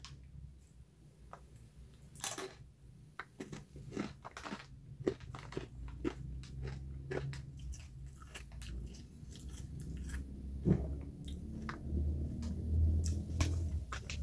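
A person biting and chewing crunchy rolled tortilla chips (Doritos Dinamita): a run of crisp, irregular crunches.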